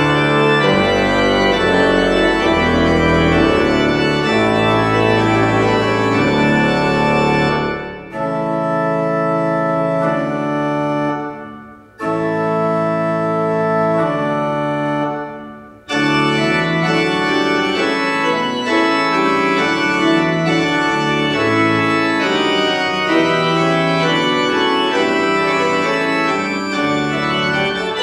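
Church pipe organ playing sustained chords with deep pedal bass. About a third of the way in it drops to a lighter passage without the bass, with two short breaks between phrases where the sound dies away in the church's echo, then returns to the full sound with bass.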